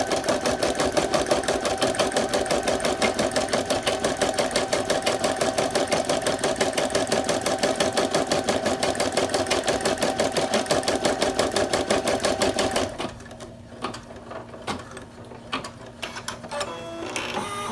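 Computerized embroidery machine stitching rapidly and evenly, with the hoop shifting under the needle as it sews the placement stitch, a single running outline on the stabilizer. The stitching stops about two thirds of the way through, followed by a few quieter clicks.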